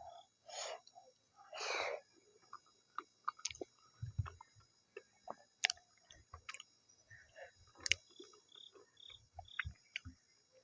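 Close-miked chewing and wet mouth clicks of a person eating soft maize dhido with nettle curry, with scattered small smacks and a few low thumps. Two short hissing noises come in the first two seconds.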